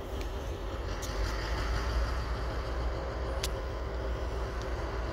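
Diesel switching locomotives pulling freight cars at low speed: a steady low engine rumble, with a sharp click about three and a half seconds in.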